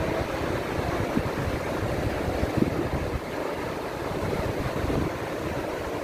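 Steady rushing noise of Takakkaw Falls, a very tall waterfall pouring down a cliff, mixed with an uneven low rumble of wind on the microphone.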